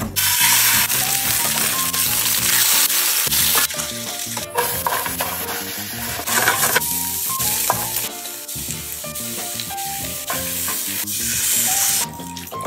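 Chopped carrots, celery and onion sizzling as they sauté in a stainless steel pan, stirred with a wooden spoon. The sizzle is loudest in the first few seconds and turns softer about seven seconds in.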